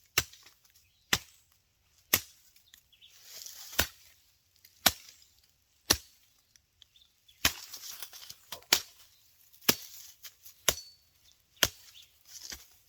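Chopping: about a dozen sharp strikes, roughly one a second.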